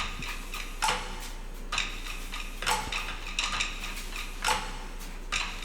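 Sharp clicks of computer input, about six in all, spaced roughly a second apart, over a faint low steady hum.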